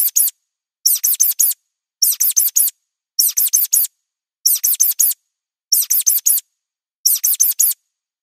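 Looped mouse squeak effect: high-pitched squeaks in quick runs of four, each squeak dropping slightly in pitch, the runs repeating about once a second with silence between.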